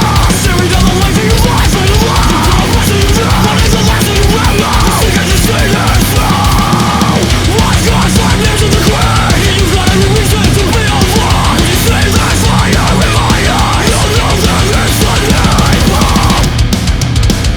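Loud heavy metal music with distorted guitars and fast, driving drums.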